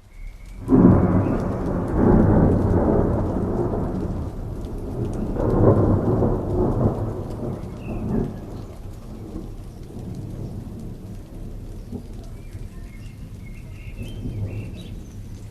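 Thunderstorm: a loud roll of thunder breaks in about a second in and swells again around six seconds, then dies down to steady rain falling.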